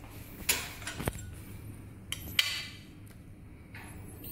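A few light metallic clinks and taps, about six separate ones spread over the few seconds, as small aluminium alloy sample pieces are picked up and handled against a handheld analyzer.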